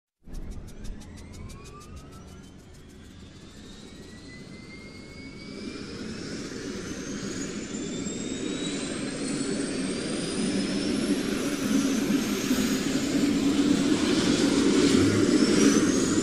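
Helicopter turbine engine spooling up: rapid even ticking in the first two seconds, then a whine that climbs steadily in pitch and grows louder.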